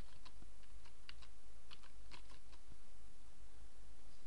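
Computer keyboard keys being typed: an irregular run of light clicks as a word is keyed in, over a steady low hum.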